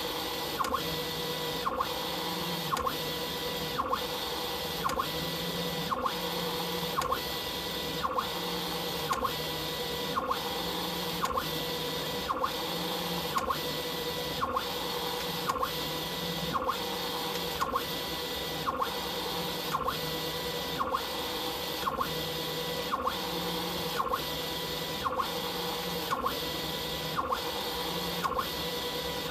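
Stepper motors of a DIY CO2 laser cutter driving the laser head back and forth along its gantry rails in a fast raster scan at feed rate 19000: a steady whine, with a pair of short clicks repeating at an even beat.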